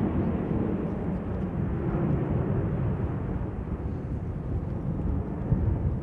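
Jet engines of a departing Boeing 737-800 (CFM56-7B turbofans) as it climbs away: a steady, noisy rumble whose higher part thins out in the second half.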